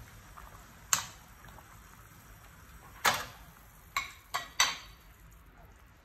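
Metal ladle knocking against a metal cooking pot of soup, five sharp clinks with a short ring: one about a second in, then four more between about three and five seconds in.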